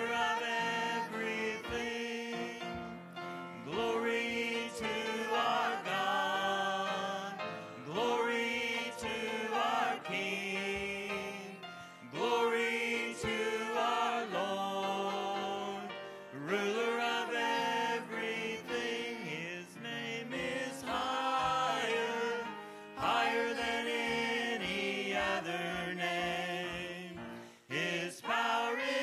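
Gospel worship music: singing over instrumental accompaniment, the melody rising and falling in phrases.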